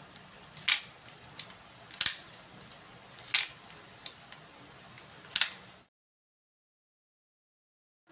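Wooden popsicle-stick hidden blade mechanism clacking as the blade is flicked out and pulled back: four sharp clacks about a second and a half apart, with a few faint clicks between. The sound then cuts out completely for about the last two seconds.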